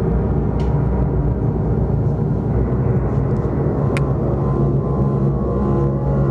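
Loud, dense low drone of held, layered tones from a live electronic music score, with a single sharp click about four seconds in.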